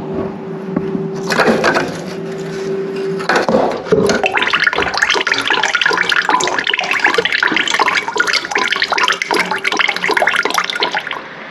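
Water draining from an old radiator's valve connection and splashing into a bucket. The trickle starts about a second in and becomes a heavier, continuous splashing from about four seconds in.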